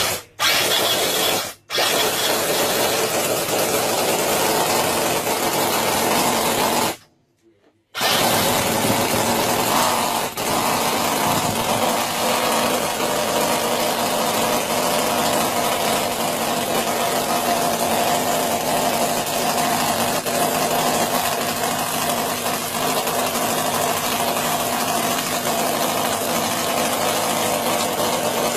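Miniature carbureted V8 model engine starting up and then running steadily, a dense, fast mechanical buzz. The sound breaks off briefly a couple of times in the first eight seconds, then runs on evenly.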